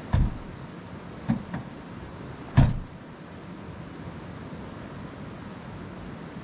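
Four sharp thumps at a parked SUV, the loudest about two and a half seconds in, over a steady background hiss.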